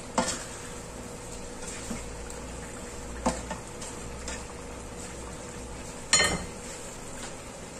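Chicken pieces simmering in a little sauce in a wok, with a steady soft bubbling and sizzling. A spatula knocks on the wok as the chicken is stirred at the start, and there is another light knock about three seconds in and a louder metallic clank about six seconds in.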